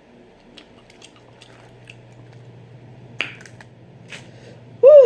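Scattered soft clicks and smacks of chewing with the mouth open, over a faint steady low hum. Near the end comes one loud burp, which marks the eater getting full.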